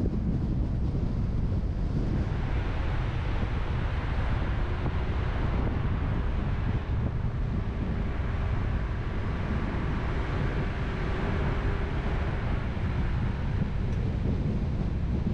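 Steady road noise of a car being driven: a continuous low rumble of wind and tyres, with a faint steady hum through the middle stretch.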